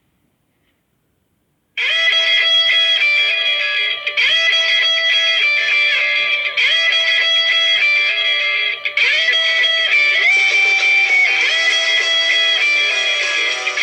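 Nokia 6300 ringtone starting abruptly about two seconds in: a guitar-like melody with sliding notes, a short phrase repeating about every two and a half seconds, with no bass.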